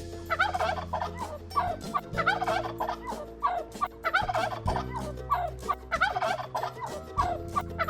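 Turkey gobbling: a run of quick, warbling gobbles repeated every second or so, over soft steady background music.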